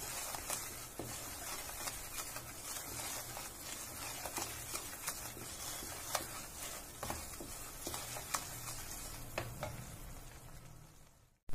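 Besan (gram flour) roasting in desi ghee in a kadhai, sizzling while a wooden spatula stirs and scrapes it without pause, with frequent short taps of the spatula on the pan. The sound fades out just before the end.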